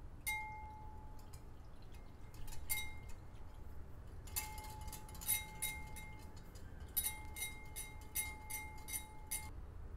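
Wire balloon whisk beating liquid egg tart filling in a glass mixing bowl, its tines clicking against the glass in several quick runs. Each run leaves the glass bowl ringing with a clear, steady tone.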